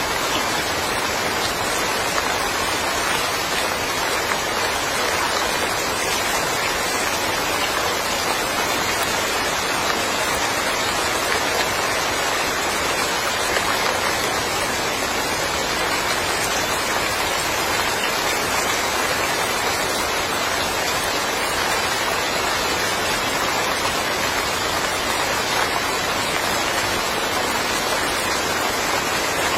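Steady rain falling and pattering on surfaces in a yard, an even hiss of many drops with no change in strength.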